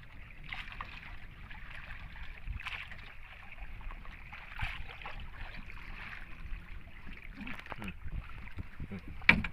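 Water sloshing against the hull of a small wooden outrigger boat, with a low wind rumble on the microphone. A sudden loud knock comes near the end.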